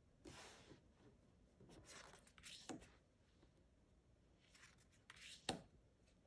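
Faint soft rustles of matte-cardstock oracle cards being slid off the top of the deck one after another, with a sharper tap about five and a half seconds in.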